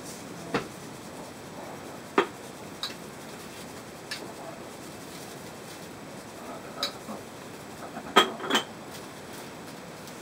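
A handful of sharp clicks and knocks as seasoning containers, including a glass jar of sesame seeds, tap against a plastic tub while being shaken over it. The loudest are two quick knocks near the end.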